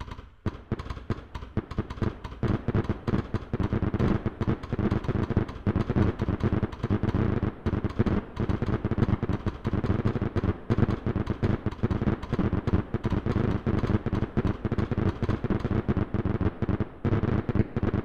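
Fireworks going off in a dense, rapid run of bangs and crackles. The run builds over the first couple of seconds, keeps up without a break, and thins slightly near the end.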